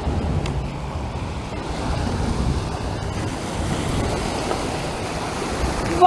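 Small lake waves lapping and washing over a rocky shoreline, with wind rumbling on the microphone.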